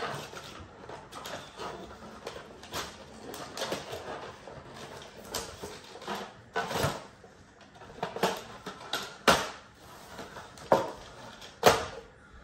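Plastic Insta360 X3 camera accessories and their foam-lined box being handled as they are unpacked: rustling with scattered clicks and knocks, and a few sharp clacks in the second half.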